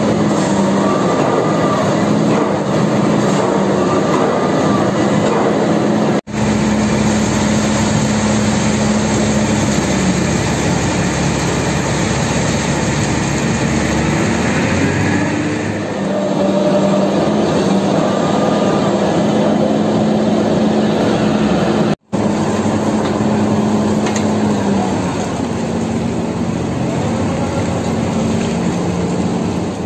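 Hino 500 concrete mixer truck's diesel engine running steadily with a low hum, its pitch shifting slightly now and then, and faint short squeals over it. The sound drops out briefly twice.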